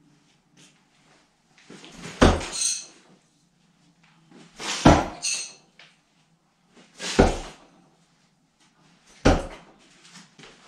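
Thrown knives hitting a target of wooden log rounds, four sharp thuds about two and a half seconds apart. The first two hits are followed by a brief metallic ring.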